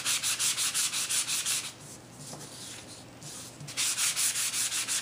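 Emery block scraped in quick back-and-forth strokes along the edge of a sheet of patterned paper, sanding it to a distressed look. Two runs of rapid strokes, with a quieter pause of about two seconds between them.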